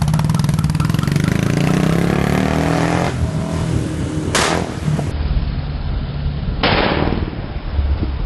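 Royal Enfield single-cylinder motorcycle accelerating, its engine note rising in pitch, then two loud bangs from its custom exhaust about two seconds apart: backfires from the flame-spitting exhaust.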